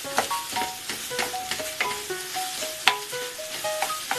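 A wooden spatula scrapes and knocks against a frying pan, several knocks a second, as tofu, bitter melon and canned mackerel are stir-fried over high heat with a steady sizzle. Light background music of short notes plays underneath.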